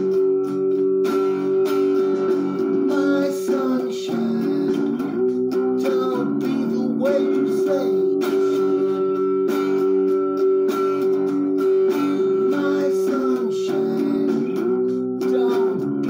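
Guitar music with strummed chords over sustained notes.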